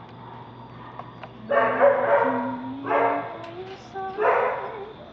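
A dog barking in three loud bursts, the first the longest, over a woman singing softly in a slow melody that steps upward note by note.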